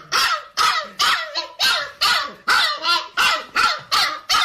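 A dog barking in a rapid, steady run of short, loud barks, about two to three a second.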